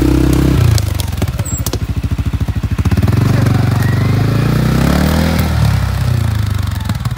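CFMoto 450L ATV engine running on and off the throttle: the revs drop about a second in, climb again, then ease off near the end, with knocks and clatter from the machine over rough ground.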